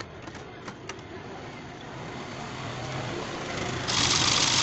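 A few light clicks of handling, then near the end the battery-powered toy rifle's small electric motor switches on suddenly and runs loudly as its safety switch is pressed, showing the repaired wiring works.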